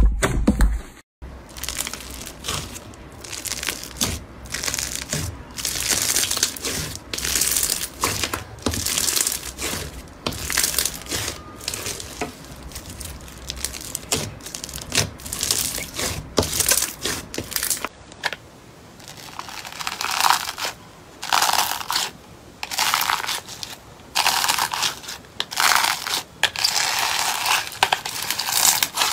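Slime being squeezed, pulled and torn apart by hand, giving repeated crackling, crinkling and crunching bursts. This includes fluffy white cloud slime tearing. The sound turns brighter and thinner about two-thirds of the way through, as a different slime takes over.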